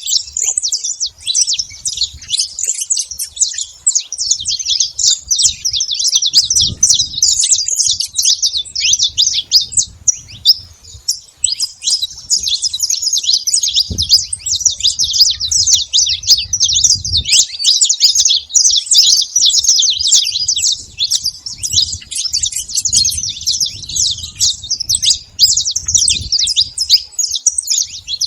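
A flock of saffron finches chirping and singing at once: a dense, continuous chatter of short, high, overlapping calls.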